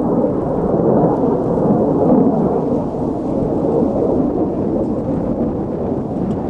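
Two fighter jets flying overhead: a loud, steady jet-engine rumble that holds throughout.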